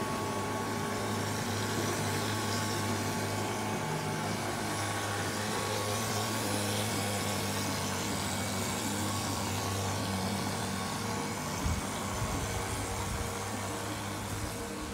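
Render spraying machine running steadily with a low, even hum, pumping render to the spray hose. A brief knock about twelve seconds in.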